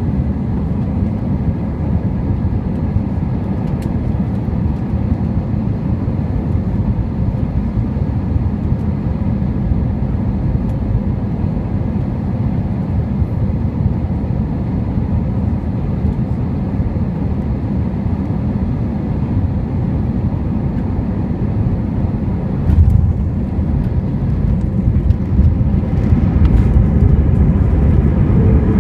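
Cabin noise inside an Airbus A321 on final approach: a steady low rumble of engines and airflow, with a single thump about three-quarters of the way through and the noise growing louder over the last few seconds.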